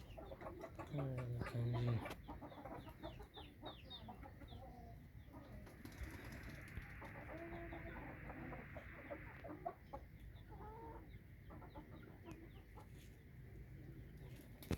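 Aseel chickens calling: chicks peeping in many short, high chirps while hens cluck and murmur lower down, with a louder low call about a second in.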